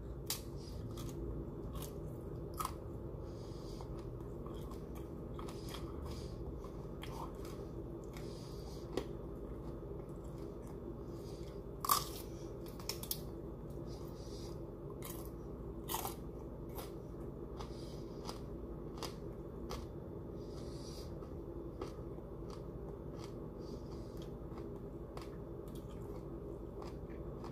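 Broccoli being bitten and chewed: scattered crunching clicks, the sharpest about twelve and sixteen seconds in, over a steady low hum.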